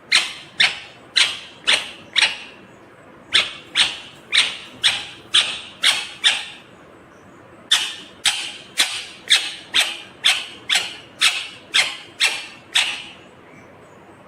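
Green Indian ringneck parakeet giving sharp, harsh calls, about two a second, in three runs with short pauses between.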